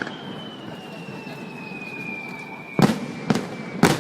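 Fireworks display: a long thin whistle slowly falling in pitch for about three seconds, then three sharp bangs of bursting shells about half a second apart near the end.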